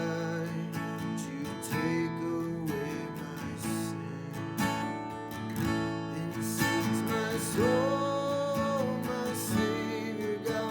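Worship music led by a strummed acoustic guitar, with held melody notes over the chords.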